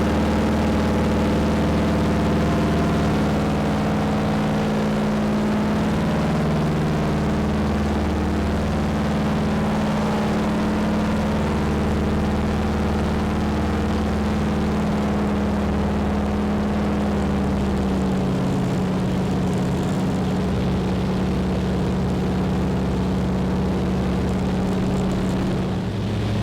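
An engine running steadily, its pitch settling slightly lower in the second half.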